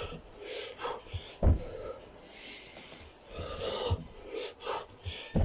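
A man breathing hard and wheezing between burpees, worn out from the exertion. Two dull thuds from the carpeted floor, about a second and a half in and at the very end, are the loudest sounds.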